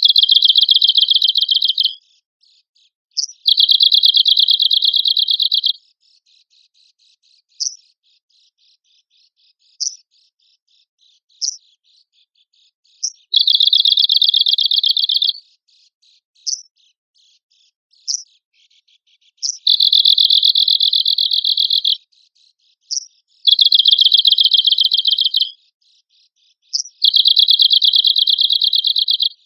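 Arctic warbler (cikrak kutub) singing: six fast, dry trills of about two seconds each, with single short, sharp call notes in the gaps between them.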